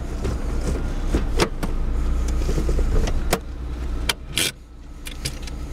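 Chevrolet Cavalier's 2.2-litre four-cylinder engine idling as a steady low hum heard from inside the cabin, with a handful of sharp clicks and a heavier clunk about four and a half seconds in as the automatic gear selector and a console lever beside the seat are worked.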